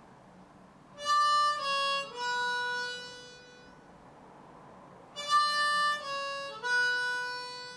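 Diatonic harmonica in A playing single notes: a three-note step down (5 draw, 5 blow, 4 draw), played twice with the last note held each time.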